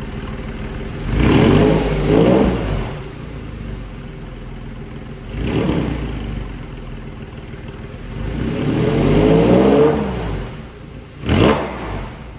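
Porsche 997 Carrera flat-six with a Soul Performance valved exhaust, idling and being revved four times: two longer revs that climb and fall back, one about a second in and one about eight seconds in, and two short sharp blips between and near the end.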